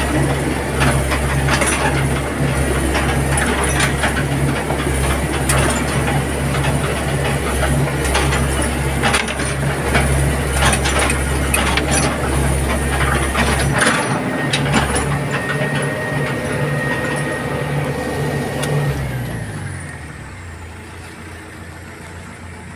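Excavator's diesel engine running under load inside the cab as the machine tracks along a muddy road, with frequent metallic clanks and knocks over the steady drone. About fourteen seconds in the deepest part of the drone drops out, and near the end the engine note sags and the sound falls away.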